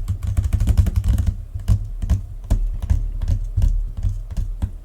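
Hands drumming on a hard surface as a mock drum roll: a fast run of taps and thuds, then slower, irregular taps that die away near the end.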